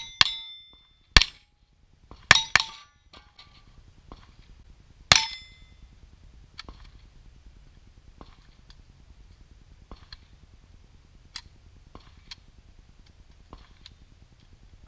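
Rifle shots at steel plate targets, about five in the first five and a half seconds, each hit answered by the ringing clang of the steel plate. Faint scattered ticks follow.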